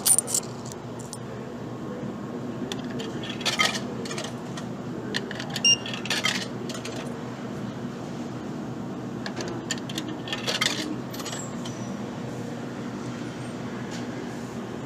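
Metallic clinks, like coins dropping, a handful of times over a steady low hum from a vending machine.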